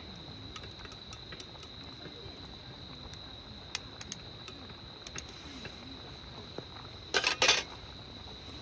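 Insects, likely crickets, singing one steady high-pitched trill, with scattered faint clicks and a short loud rattle of something handled about seven seconds in.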